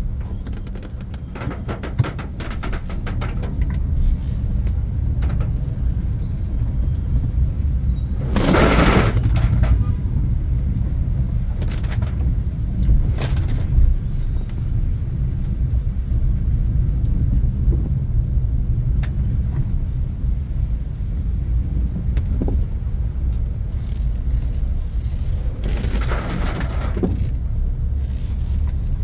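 Inside a moving car's cabin on a rain-soaked road: a steady low rumble of engine and tyres, with a louder rushing hiss of water about nine seconds in and again near the end, and shorter swishes between them.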